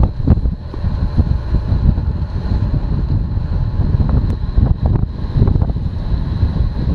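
Wind buffeting the microphone of a handlebar-mounted camera on a road bike descending at speed: a heavy, unsteady low rumble with occasional short knocks.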